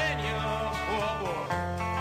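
Country-style background music with guitar over a steady bass line; the bass note changes about halfway through.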